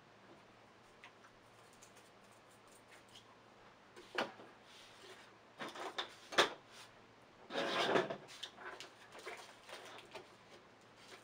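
Quiet handling of paint supplies on a tabletop: a few sharp taps and clicks, and about 8 seconds in a brief rustle or scrape, as paint and a toothpick are picked up and put down.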